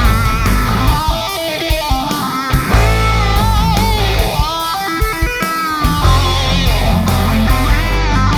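Heavy metal instrumental: a distorted high-gain electric guitar plays a lead melody with bends and vibrato on its held notes, over chugging rhythm guitar, bass and drums.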